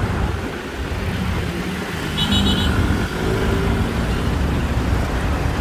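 Busy road traffic with the rumble of passing car and truck engines. A little over two seconds in, a quick run of about four short high-pitched beeps sounds over it.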